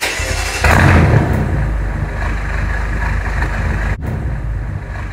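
2015 BMW M5's twin-turbo V8 started remotely: the engine comes in suddenly, flares loudest about a second in, then settles into a steady idle.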